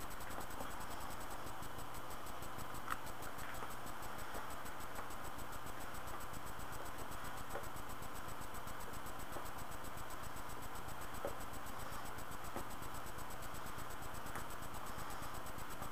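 Steady background hiss of a low-grade microphone, with a few faint, scattered clicks and rustles.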